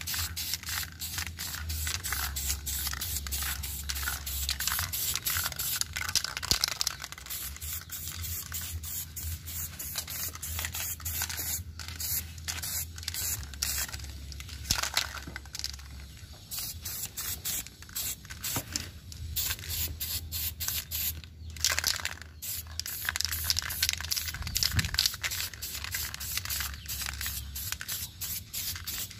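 Aerosol spray-paint can (Diton Premium) hissing in many short bursts, one after another, as a repeat coat is laid on to make the finish glossier.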